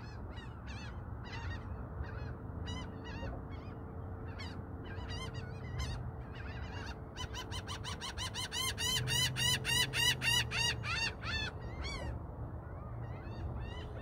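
A bird giving a series of short, high, sharp calls, scattered at first, then quickening into a fast run of about four or five calls a second in the middle, and thinning out again near the end. A low steady rumble sits underneath.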